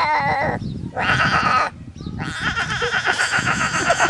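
An animal calling: three wavering, quavering cries with short pauses between them.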